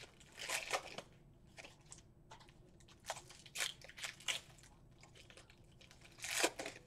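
Trading-card pack wrappers crinkling and tearing as they are handled, in scattered short bursts, the loudest near the end.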